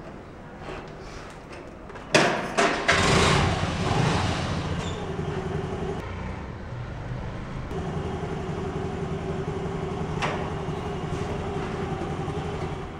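Small motor scooter engine starting up about two seconds in, louder for a moment, then settling to a steady idle.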